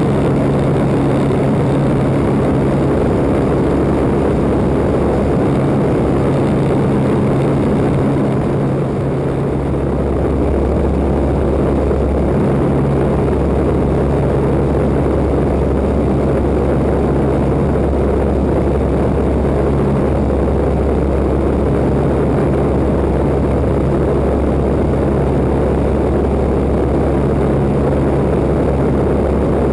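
1940 Waco open-cockpit biplane's radial engine and propeller running steadily in cruise flight, with wind rushing over the wing-mounted microphone. The drone eases slightly for a moment about nine seconds in.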